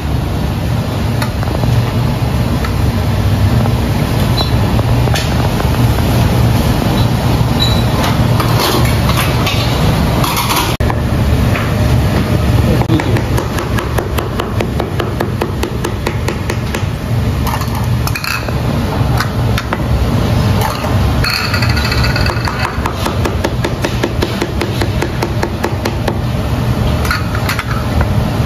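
Cleaver chopping cooked pork stomach on a thick plastic chopping board: quick runs of sharp knocks on the board, growing rapid and steady from about halfway through. A steady low hum runs underneath.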